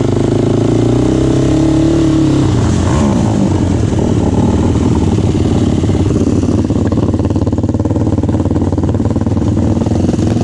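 Can-Am DS 450 quad's single-cylinder four-stroke engine running steadily while riding along a dirt trail, its engine note shifting about two and a half seconds in.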